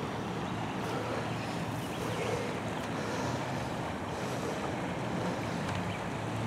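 Water rushing steadily over the small rapids of a creek running high after a night of rain.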